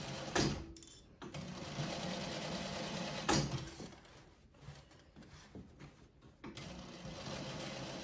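Juki industrial single-needle sewing machine stitching a seam in runs: it sews steadily, stops briefly about a second in, and ends the run with a sharp clack a little past three seconds. After a quieter pause it starts sewing again near the end.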